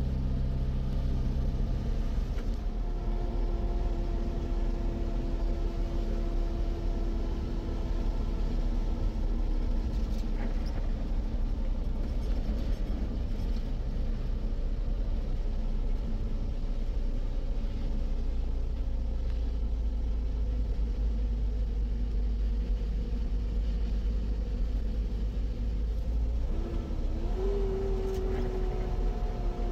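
Steady low vehicle rumble, with faint engine tones that drift slowly in pitch and a brief rise in pitch near the end.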